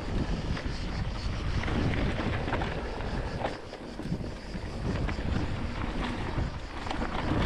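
Wind buffeting the microphone and bike tyres rolling over a dirt trail on an electric mountain bike descent. A few short clicks and knocks from the bike come through the steady rush.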